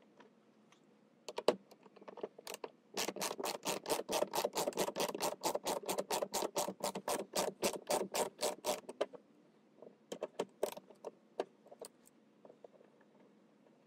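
Ratchet wrench clicking rapidly, about six clicks a second for some six seconds, backing out a 7 mm bolt; a few loose clicks and taps follow near the end.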